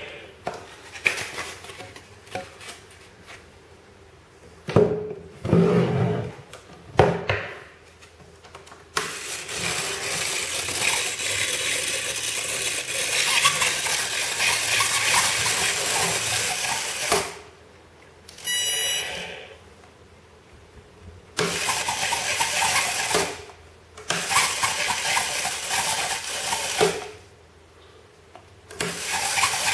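The tiny electric motor and propeller of an ultra-micro RC plane run up in several steady bursts of a few seconds each, a whirring buzz that stops and starts again. Before the first run there are a few sharp knocks and clinks.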